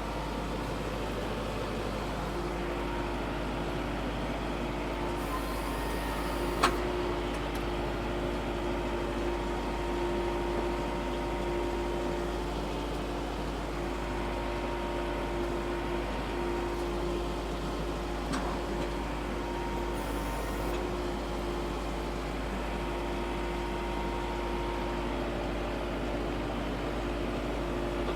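Vehicle engine running steadily while crawling in its lowest 'granny' gear in four-wheel drive, at about 0.13 mile an hour. One sharp click about seven seconds in.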